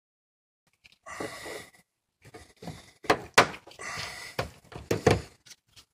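Plastic clicks and knocks as a screwdriver pries the front bumper cover of a Toyota Sienna loose from the fender, with several sharp snaps in the second half as the clips let go.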